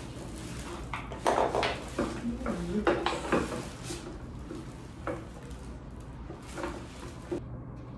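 Metal tools and hardware clinking and clattering against an office chair's seat mechanism during assembly: a busy run of knocks and clinks in the first few seconds, then a few scattered clicks.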